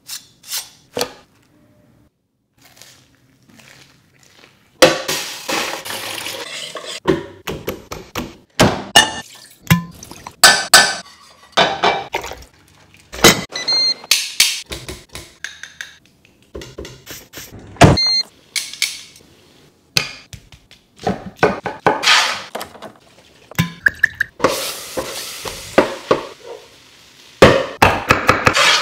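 A run of kitchen sounds: a knife striking and chopping on a wooden cutting board, thunks, and clinks of dishes and cookware, with a few stretches of steady noise between them. It is mostly quiet for the first few seconds apart from a couple of clicks.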